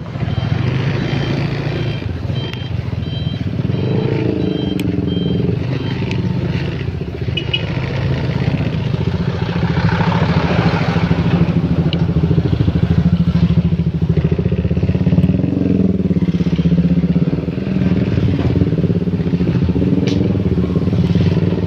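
Motorcycle engine running steadily at low speed, its pitch drifting up and down a little.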